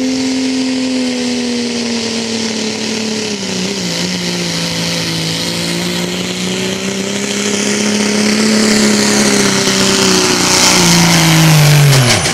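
Diesel engine of a Dodge Ram pickup running at full throttle under the load of a pulling sled, belching black smoke, with a thin high whistle above it. Its steady note sags a little about three and a half seconds in as the sled digs in. Near the end the note rises briefly, then drops sharply as the throttle comes off.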